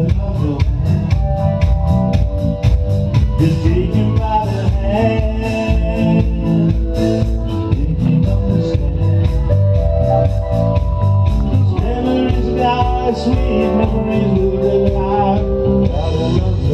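Live rock band playing: a steady drum-kit beat under electric guitars, with singing at times.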